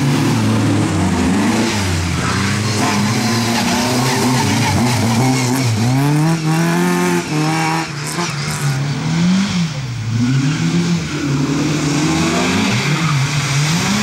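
Rally car engines at full racing pace, the pitch rising hard and falling back again and again through gear changes and lifts as the cars pass in turn. The longest, highest rev comes about halfway through.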